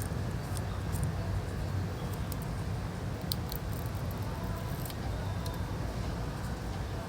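Scattered faint light clicks and ticks of small repair tools against the phone's metal and plastic parts, over a steady low hum.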